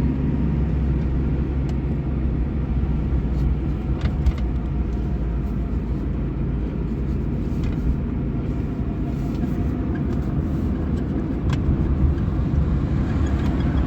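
1998 Suzuki Baleno driving, heard from inside the cabin: a steady low rumble of engine and road noise, with a few faint light clicks from the interior here and there.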